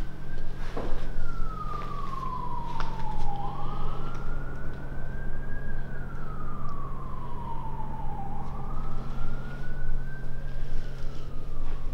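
An emergency vehicle siren wailing, its pitch sliding slowly up and falling back about once every five seconds, over a steady low hum. A single sharp knock sounds about a second in.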